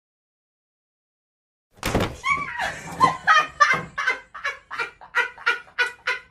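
Silence for about two seconds, then a person laughing in a long run of quick, even "ha" pulses, about three a second.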